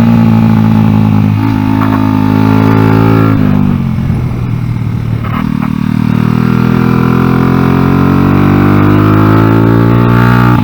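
Honda XR100 single-cylinder four-stroke engine in an NSF100 road-race minibike running hard on track. It holds high revs, backs off about three and a half seconds in, then pulls back up in a steady rising pitch.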